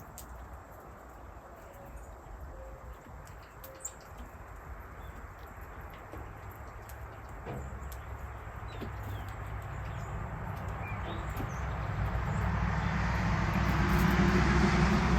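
Faint, scattered small-bird chirps over a low rumble. A vehicle approaches in the second half, its engine and road noise growing steadily louder toward the end.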